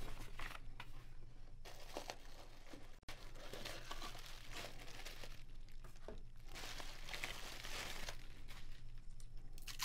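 Bubble wrap and packaging crinkling in irregular rustles as hands open a small cardboard box and unwrap the device inside.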